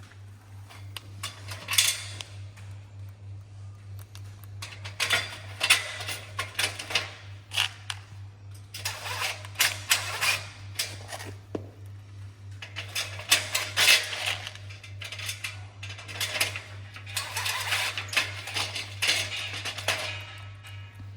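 Greenhouse frame parts and fasteners being handled during assembly: bursts of clinking and clattering every few seconds, over a steady low hum.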